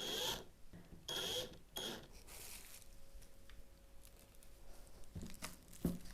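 Three short, high-pitched electronic beeps in the first two seconds, then a faint steady hum and a few light handling knocks near the end.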